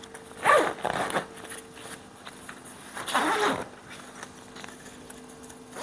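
Zipper on the fabric cover of a portable clothes dryer being pulled closed in two strokes, each rising in pitch: one about half a second in and another about three seconds in.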